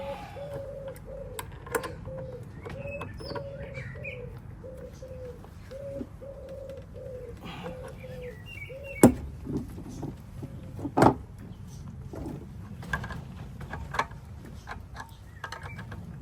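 A row of short, low hooting notes, about two a second, that stops about nine seconds in, followed by a few sharp knocks and clicks from hand work on the electric scooter's rear wheel; the two knocks near the middle are the loudest sounds.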